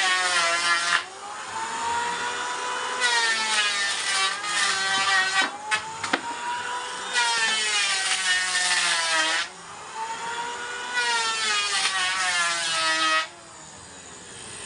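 Power tool cutting wood in four passes about four seconds apart, its motor running on between them. The whine sags in pitch under each cut and rises back when the tool runs free.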